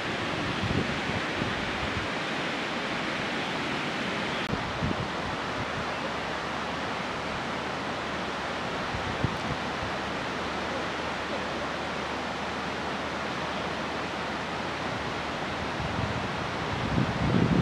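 Steady rushing of a river in flood, with wind buffeting the microphone now and then, most strongly near the end.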